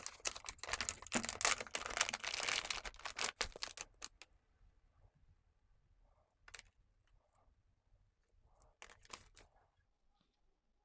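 Rapid scratching at a scratch-off authenticity code label, lasting about four seconds, followed by near silence with a few faint clicks.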